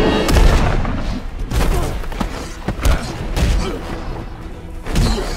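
Movie battle soundtrack: dramatic score music with a series of heavy impact hits and booms as a fight plays out.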